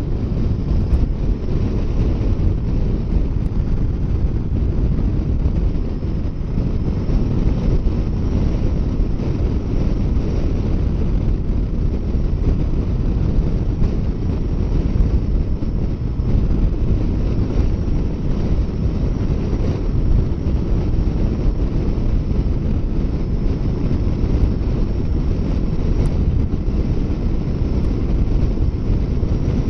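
Steady wind rumble on the microphone of a motorcycle riding at highway speed, with no clear engine note above it.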